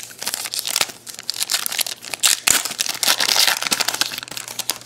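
Shiny plastic-foil wrapper of a 2011 Donruss Elite football card pack being torn open and crinkled by hand, a dense, loud crackling.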